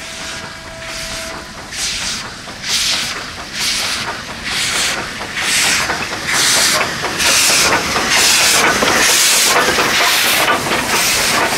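Garratt steam locomotive No. 613 working slowly past close by with its cylinder drain cocks open: rhythmic bursts of hissing steam, about two a second, growing louder until near the end they run together into one steady hiss.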